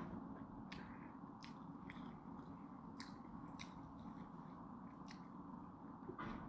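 A person chewing a mouthful of noodles with the mouth near the microphone: faint wet mouth clicks and smacks every half second to a second, over a low steady hum.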